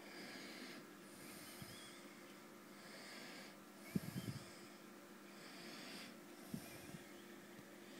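Faint breathing close to the microphone, a soft hiss about every second and a half, over a steady low hum. A short cluster of low thumps comes about halfway through, and a couple more come later.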